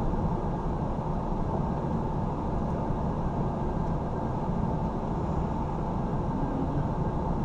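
Gas furnace running, its burners firing and blower fan moving air: a steady, even rushing noise. The unit has just had its burners and flame sensor cleaned and its gas pressure set.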